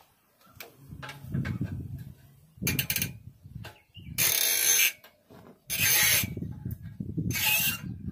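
Hand tools working on a Hero HF Deluxe motorcycle engine: four loud bursts of metallic ratcheting, each under a second, over a low rumble.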